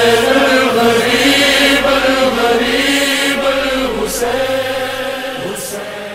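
Chanted vocal intro music with long held, wavering notes and occasional hissing sibilants, fading out near the end.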